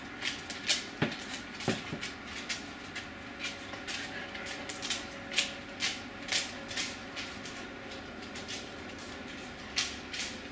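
A dog sniffing and breathing in short, irregular puffs, about two a second.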